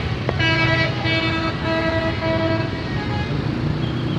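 A bus's telolet musical horn playing a quick run of several short notes for about two and a half seconds, over the low running of bus engines.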